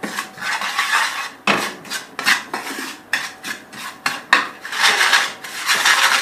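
A utensil stirring and scraping ground garam masala spices around a frying pan as they roast in a little oil, in repeated scraping strokes with a sharp knock against the pan about four seconds in.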